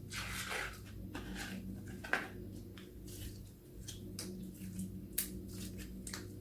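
Hands squishing and kneading a bead-filled antistress toy, making irregular soft squelches and crackly clicks, with a sharper click about two seconds in and another about five seconds in.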